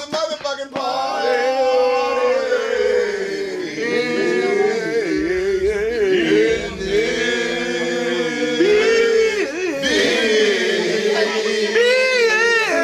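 A group of men singing together without instruments, in long held, chant-like notes.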